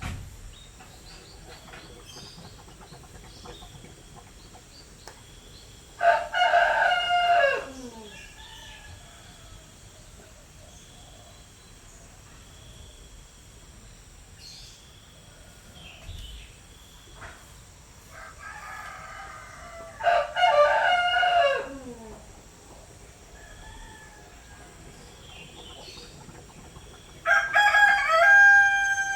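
Rooster crowing three times, each crow under two seconds and dropping in pitch at its end, the last one near the end. Faint bird chirps lie between the crows.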